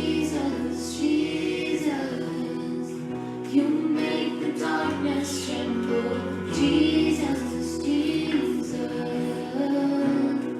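Contemporary worship song: singing with held, drawn-out notes over a band accompaniment whose chords change every couple of seconds.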